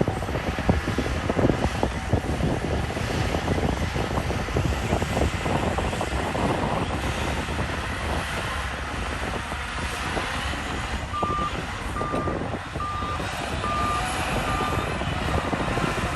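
Bulldozer engine running under load with its tracks clanking. About two-thirds of the way in, a reversing alarm starts beeping steadily.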